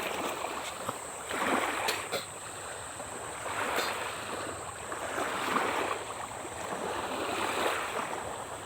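Small waves washing in against the shore, one swell of water noise about every two seconds.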